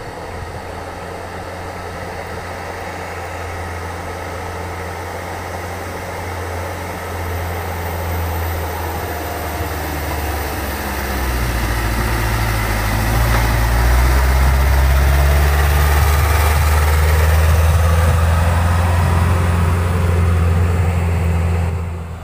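Diesel engine of a light dump truck running steadily, growing louder as the truck draws near and passes close by, then cutting off sharply near the end.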